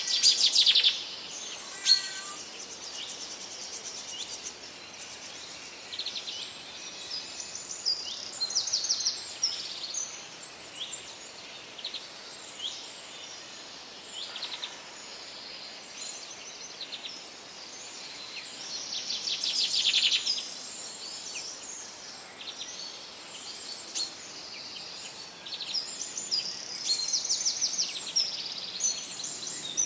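Birdsong: several birds chirping, with rapid high trills coming again and again over a faint steady hiss. The loudest trills come right at the start, about twenty seconds in, and near the end.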